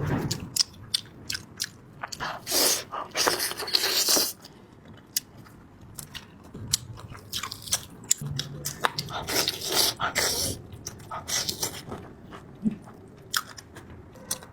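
Close-miked eating sounds: chewing and biting with crunchy bites, many irregular short clicks, and louder stretches about two seconds in and again near ten seconds.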